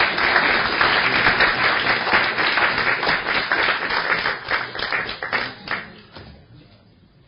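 Audience applauding, many hands clapping at once, thinning to a few last claps and dying away about six seconds in.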